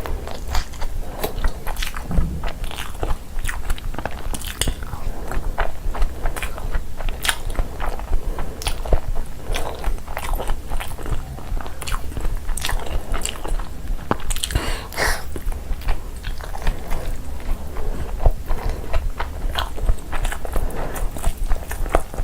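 Close-miked eating: steady chewing and biting with crunchy bites, a dense run of irregular short clicks and crackles.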